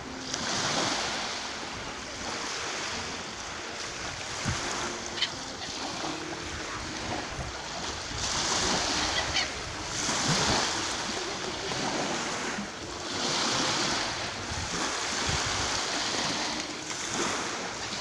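Small sea waves breaking and washing up on a sandy shore, swelling and ebbing every few seconds, with a couple of short gull cries about five and nine seconds in.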